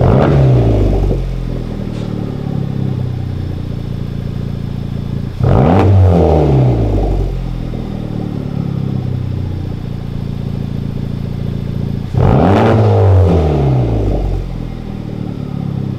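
Honda Civic Type R's 2.0-litre turbocharged four-cylinder idling through a freshly fitted Tomei exhaust, revved three times: near the start, about five seconds in and about twelve seconds in. Each blip climbs quickly and falls back to idle.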